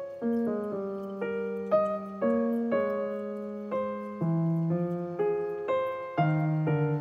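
Background piano music: a gentle melody of single struck notes, about two a second, each fading before the next.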